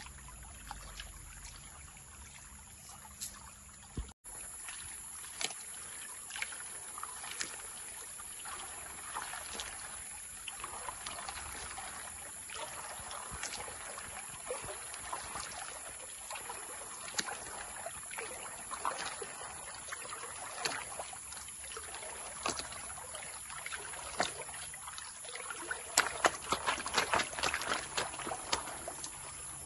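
A large gold pan being swirled and dipped in a shallow stream, water sloshing and splashing irregularly over its rim as the gravel is washed. The splashing grows louder and busier near the end.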